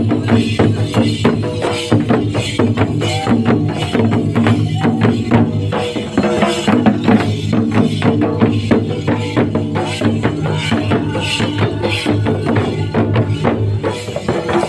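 Folk music with dense, even drum and percussion strokes over a sustained lower tone.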